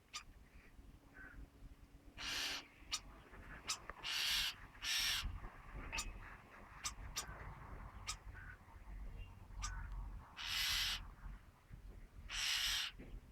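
Common starling calling: five harsh, hissing wheezes, each under half a second long, with sharp clicks scattered between them.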